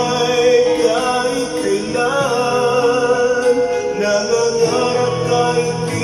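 A man singing into a handheld microphone over backing music, holding long notes with slides in pitch.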